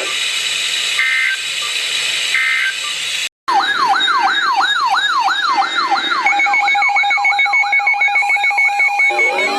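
Weather-radio SAME end-of-message data: three short two-tone digital bursts over radio static, about a second and a half apart. After a brief cutout comes an electronic siren-like alert tone, warbling up and down about four times a second. About six seconds in it changes to a steady tone with quick pulsing beeps, and near the end rising siren tones begin.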